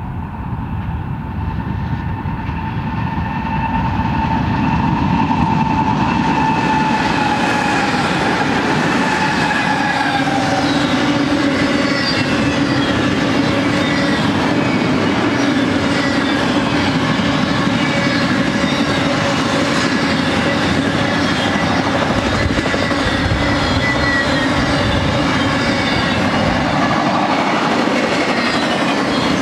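BNSF freight train passing close by: GE diesel locomotives growing louder over the first few seconds, then double-stack intermodal cars rolling past steadily with wheel clatter on the rails. A drawn-out tone falls slowly in pitch through the first ten seconds and fades out.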